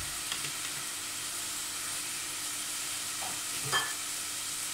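Chopped vegetables and white wine sizzling in an enamel pot, a steady hiss as the wine cooks off.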